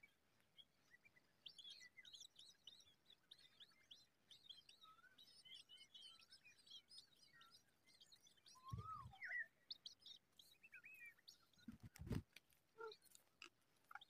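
Faint, thin high cheeps and chirps of shrike nestlings begging in the nest. There are a couple of soft low thumps, about nine seconds in and again, louder, about twelve seconds in.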